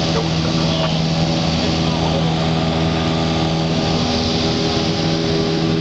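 Cessna 172's piston engine and propeller running steadily during the climb-out after takeoff, heard inside the cabin as a loud, even drone with a steady hum.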